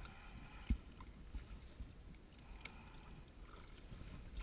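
Low rumble of wind on the microphone and water lapping at the hull of a boat sitting on the water, with one dull thump less than a second in and a few faint ticks later.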